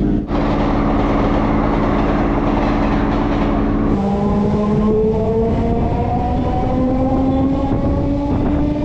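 Suburban electric multiple-unit (EMU) train running, a dense rumble with a steady hum. About four seconds in the sound changes to a whine that climbs steadily in pitch as the train picks up speed leaving the station.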